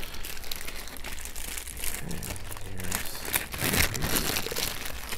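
Plastic packaging bag crinkling and rustling as a boxed device in it is handled and lifted out.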